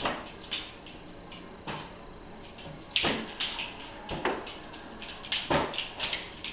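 Rubber balloon being batted about by a border collie and a child's hand: a series of sharp taps and thumps at irregular intervals, about eight in all.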